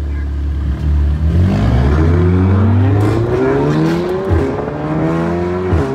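Car engine accelerating hard, heard from inside the cabin: after a low steady rumble, the pitch climbs steadily from about a second and a half in. It drops at a gear change about four seconds in, climbs again, and drops at another shift near the end.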